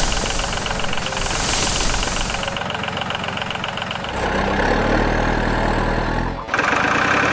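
Vehicle engine running at idle with a fast rattling tick. About four seconds in, a deeper engine note joins, and it cuts off abruptly near the end, where a different engine sound takes over.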